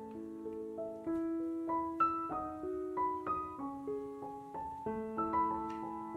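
Background piano music: a gentle melody of single notes over held lower notes.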